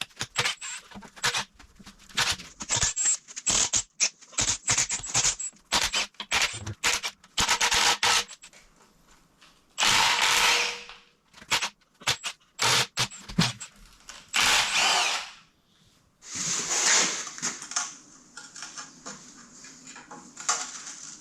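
Handheld power tool run in many short bursts, then in three longer runs of about a second each.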